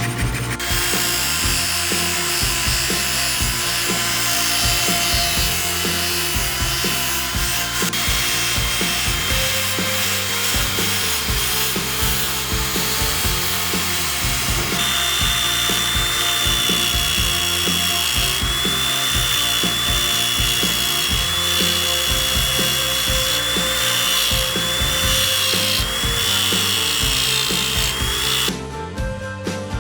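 A power tool running steadily against wood with a high, slightly wavering whine, over background music with a steady beat. Near the end the tool stops suddenly and only the music remains.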